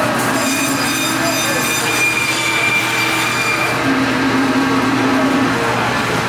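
Butcher's meat bandsaw cutting through a bone-in beef chuck to make steaks: a steady mechanical whine, with a high squeal from the blade through the first few seconds.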